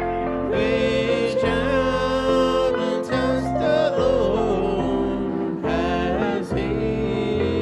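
A gospel hymn sung in church, slow held notes over steady instrumental accompaniment.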